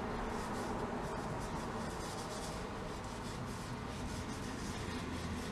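Scotch-Brite pad scrubbing stripper-softened paint off a gumball machine part, a steady rubbing and scraping.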